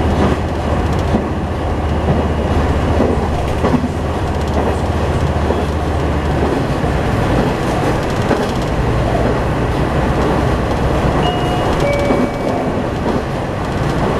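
Diesel railcar running at speed, heard from inside the passenger cabin: a steady rumble of wheels on rail with some clickety-clack over the joints. A low engine drone fades out about six seconds in, as the engine eases off.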